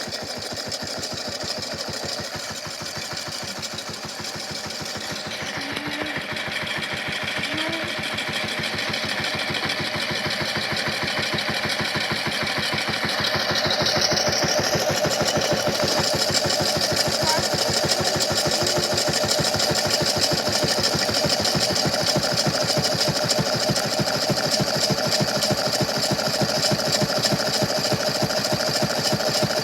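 Toy washing machine running with a big rock inside its drum: a small motor's steady, fast, even rattling whir that grows louder over the first half and then holds.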